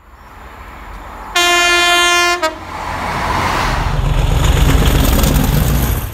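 Train horn sounding one long steady note, then a brief second toot. A diesel locomotive hauling coaches then passes close by with a rising, heavy rumble of engine and wheels.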